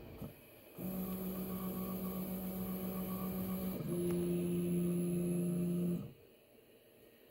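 Voron 2.4 3D printer's stepper motors whining steadily as the toolhead and gantry move away from the finished print. The pitch drops slightly about four seconds in, and the sound cuts off abruptly about two seconds later.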